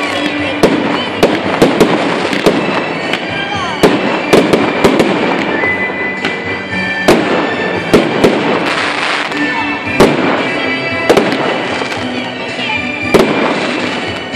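Fireworks display going off: a rapid string of sharp bangs from aerial shell bursts, with crackling and a few whistles between them.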